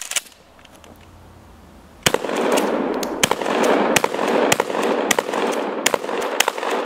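Mossberg 590 A1 12-gauge pump-action shotgun fired in a rapid string of shots, beginning about two seconds in, each blast rolling into the echo of the next. A short mechanical clack comes right at the start as the gun is handled.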